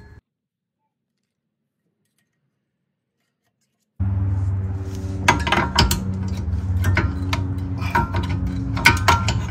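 Complete silence for about the first four seconds, then metal brake pads and their clips clinking and scraping as they are worked out of a Honda Accord's rear brake caliper bracket by hand. A steady low hum runs under the clinks.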